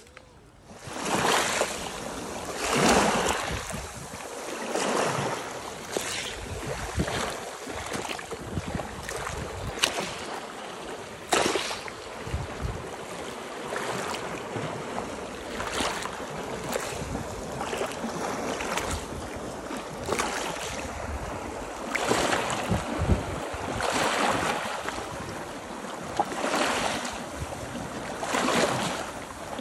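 Small sea waves lapping and splashing against shoreline rocks close to the microphone, swelling every couple of seconds, with one sharper splash about midway.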